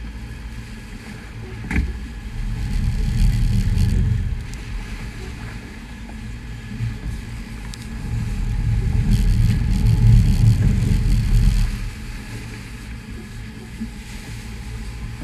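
Low rumble of a sportfishing boat's engines mixed with wind and rushing water against the hull and microphone, swelling about three seconds in and again around nine to eleven seconds. There is a brief knock a couple of seconds in.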